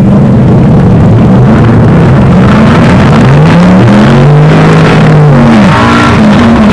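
Drag racing car's engine revving hard, very loud, its pitch climbing about three seconds in and again near the end as the car pulls away.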